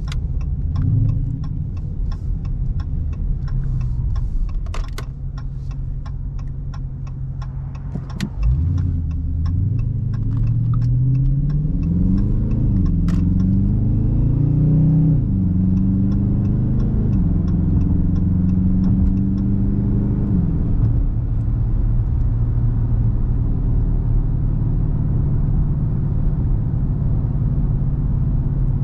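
Dodge Charger R/T's 5.7-litre HEMI V8 idling under a quick, steady ticking, then pulling away about eight seconds in. It revs up through two upshifts, the pitch rising and dropping back each time, and settles into a steady cruise.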